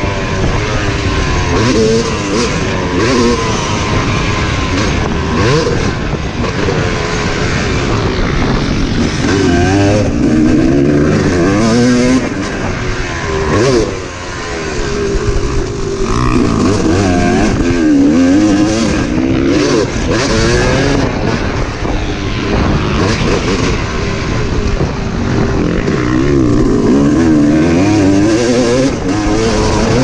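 Yamaha motocross bike's engine, heard on board, revving up and down over and over as the rider works the throttle around a dirt track. The throttle briefly closes about halfway through. Wind rushes over the microphone throughout.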